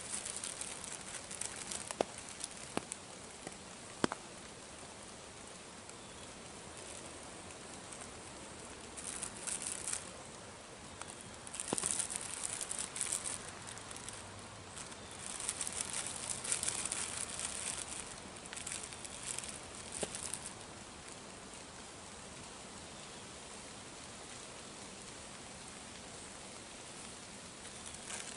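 A crinkly plastic bag of hot Cheetos being handled, crackling in several separate bursts over a steady outdoor hiss. A few sharp clicks come in the first few seconds.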